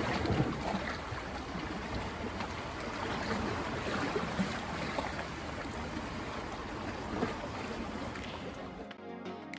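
Small sea waves lapping and splashing against shoreline rocks, a steady wash of water with small irregular splashes. Background music cuts in just before the end.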